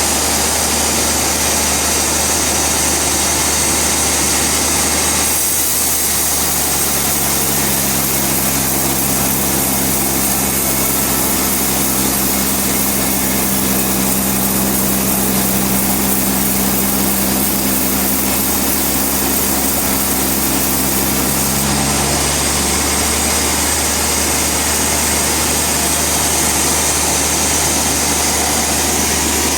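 Sawmill machinery running steadily: an engine with a strong high hiss. From about 7 s to 22 s a lower steady hum with several pitches joins in.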